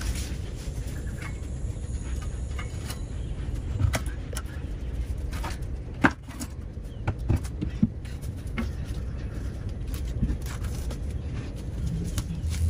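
Climbing vines being pulled off a cinder-block wall by hand: scattered rustles and snaps, with one sharp snap about six seconds in, over a steady low rumble.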